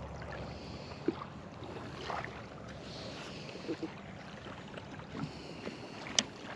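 Steady outdoor wind and water noise with a few faint knocks and a sharp click about six seconds in.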